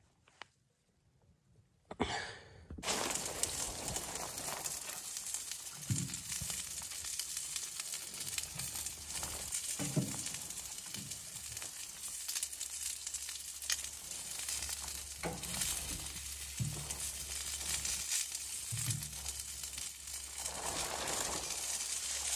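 Chicken pieces sizzling in a wire grill basket on top of a hot wood-burning tent stove. The sizzle starts suddenly about three seconds in and runs on as a steady hiss, with a few soft thumps through it.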